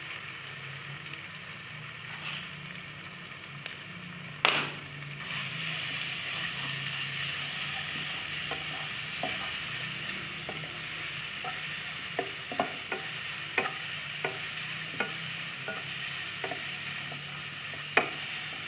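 Ground spice paste sizzling in a little cooking oil in a non-stick wok while a wooden spatula stirs it. From the middle on, the spatula taps and scrapes the pan in short clicks about twice a second, and there is one louder knock about four and a half seconds in.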